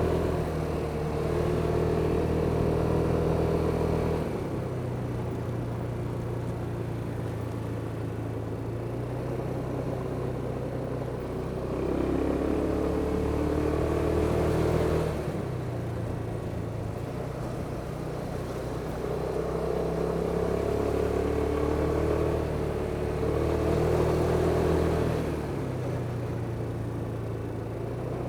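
Kymco Superdink 300 scooter's engine running while riding, the throttle opened and eased off in turn. It is louder for the first few seconds, again from about 12 to 15 s in, and again over a long stretch later on, dropping back to a quieter run between.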